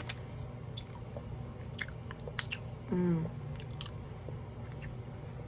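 Close-up chewing of a gummy candy: soft, wet mouth clicks and smacks at irregular intervals. A short hummed vocal sound comes about three seconds in.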